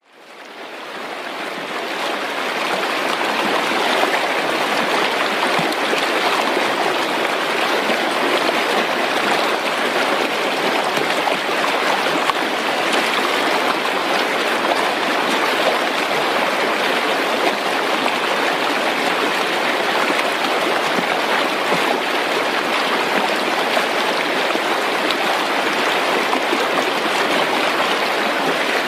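A stream flowing with a steady rushing and babbling, fading in over the first two seconds.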